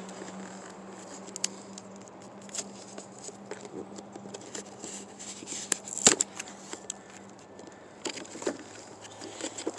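Hands turning and fingering a small cardboard toy box, with scattered light taps, rubs and scrapes on the card and one sharper click about six seconds in.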